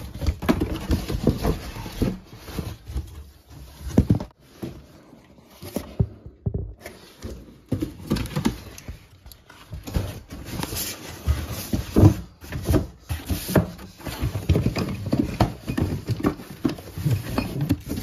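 Cardboard box and foam packaging being handled while unboxing: irregular rustling, scraping and knocks, with a few sharper knocks.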